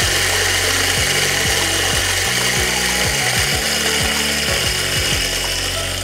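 HL 600N electric coffee grinder running steadily, its motor and burrs making a slightly rough grinding noise. The roughness is normal as the burrs grind the coffee fine, not a sign of damage.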